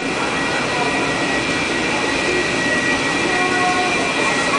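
Washington Metro station ambience heard riding the escalator down: a steady mechanical rumble with a constant high-pitched whine, echoing in the concrete tunnel.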